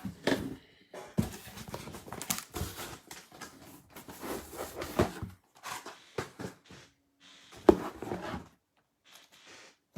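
Irregular rustling and crinkling with sharp knocks, as of things being handled on a table.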